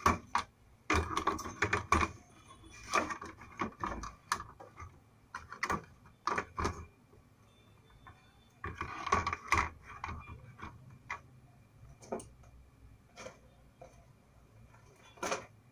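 Handling noise inside an opened induction cooktop being reassembled: irregular clicks, knocks and light rattles as the board, heatsink, wires and copper work coil are fitted back into the plastic base.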